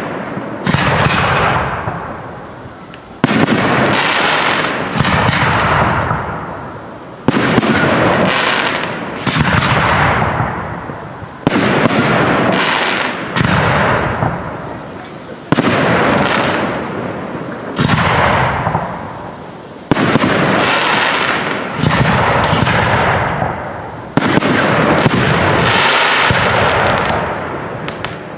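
Aerial firework shells bursting one after another, a sharp bang every second or two, each dying away over a second or more.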